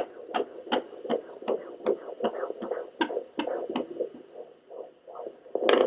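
Sonoline B fetal Doppler's loudspeaker playing a fast, even heartbeat, about 160 beats a minute (the rate of a fetal heart at 18 weeks), over a steady hiss. The beats fade and break up a little after halfway, and a brief loud whoosh comes near the end.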